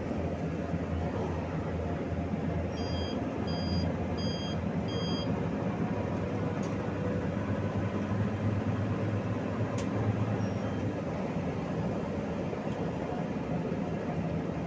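Steady engine and road noise inside a PAZ 32054 bus running on gas (LPG/CNG) fuel as it drives along. About three seconds in, four short high electronic beeps sound in quick succession.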